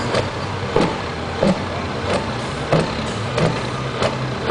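Scania V8 diesel truck engine blipped hard again and again, a short burst about every two-thirds of a second, each burst putting out a puff of black smoke from the stacks.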